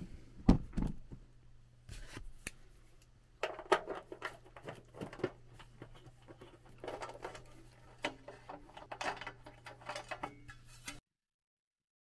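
Screwdriver and hands working the screw and metal access cover over a water heater's element: scattered clicks, scrapes and rattles over a steady low hum. It cuts off suddenly about a second before the end.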